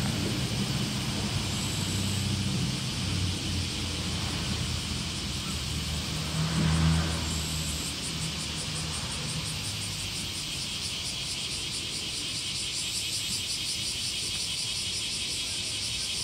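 A vehicle engine passes close by, loudest about seven seconds in, then fades away. Steady insect chirring continues throughout.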